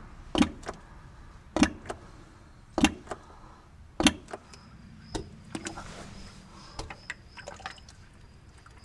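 Four sharp knocks about a second apart, then a few lighter clicks, with crickets chirping steadily from about halfway.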